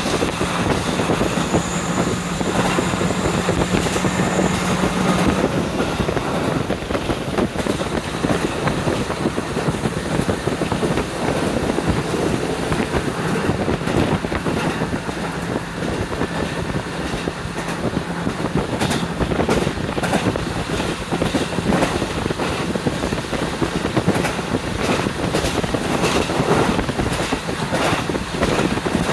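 Wind rushing in through the open window of a moving KiHa 40 diesel railcar, over the steady hum of its diesel engine and occasional knocks from the wheels on the rails. The engine hum is strongest for the first few seconds.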